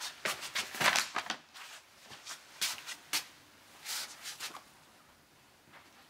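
Soft, scattered shuffling and rustling of a person moving about a small room, dying away after about four and a half seconds.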